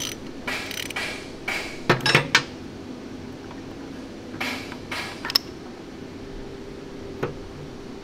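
Bearing puller being loosened and taken off a differential shaft: steel tools clank and scrape against the metal. The sharpest clinks come about two seconds in and again around five seconds, with one more click near the end.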